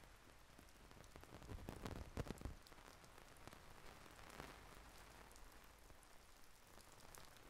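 Rain falling steadily and faintly, with a cluster of louder drop hits about two seconds in and another near the middle.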